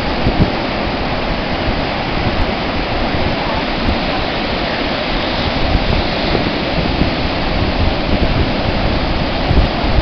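Steady roar of ocean surf with wind buffeting the microphone in irregular low gusts.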